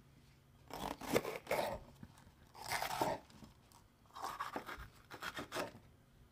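Kitchen knife cutting through a raw green bell pepper on a wooden cutting board: crisp crunching cuts in three bursts, about a second in, around the middle, and through the second half.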